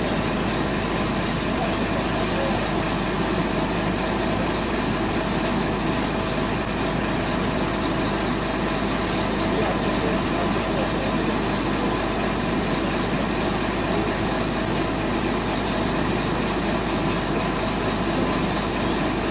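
Steady machinery noise from a concrete mixer truck's engine running its turning drum as it discharges into the hopper of an ESF30 sand-stone separator (concrete reclaimer), which runs alongside.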